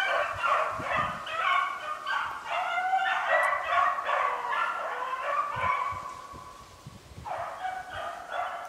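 A pack of beagles baying in full cry on a swamp rabbit's track, many voices overlapping. The cry dies down about six seconds in, then picks up again a second later.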